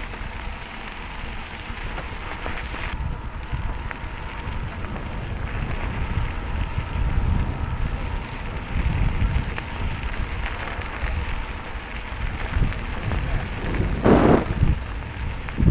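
Wind buffeting an outdoor microphone during a trail ride: a steady gritty hiss with gusty low rumbles that grow louder, and a loud gust about fourteen seconds in.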